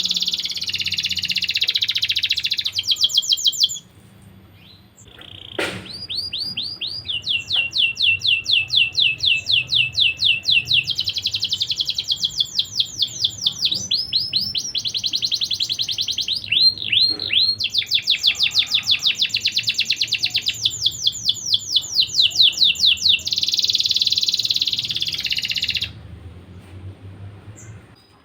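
Domestic canary singing long, loud phrases of rapid trills and rolls. It pauses briefly about 4 seconds in and stops near the end.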